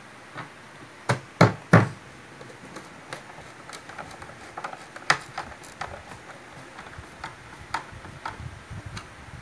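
Knocks and clicks from a screwdriver and hands working on a speaker cabinet's mid-range horn while it is being screwed in: three loud knocks in quick succession about a second and a half in, then scattered lighter ticks and taps.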